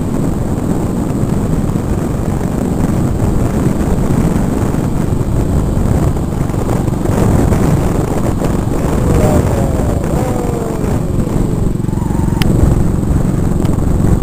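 Wind rushing over the microphone of a moving motor scooter, with the scooter's small engine running under it.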